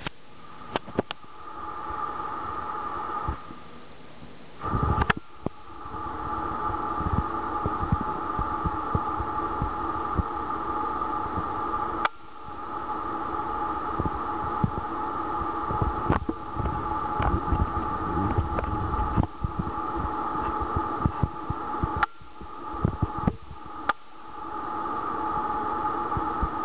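Steady mechanical hum, cutting out abruptly a few times and coming back, with low rumble and scattered knocks from a shaky hand-held camera.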